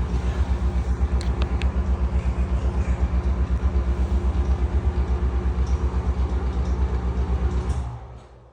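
NuTone exhaust fan running with a loud grinding rumble and a fast, even throb, the sign of badly worn motor bearings. The sound dies away near the end.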